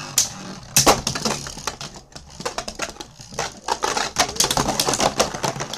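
Beyblade Burst spinning tops, Rock Dragon D5 and Ogre O5, whirring and clashing in a plastic Beyblade Burst stadium: a fast, loud clatter of clicks and knocks as the tops collide with each other and rattle against the stadium walls.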